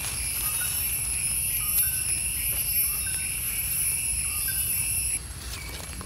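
Insects droning in a steady, high-pitched chorus that cuts off suddenly about five seconds in.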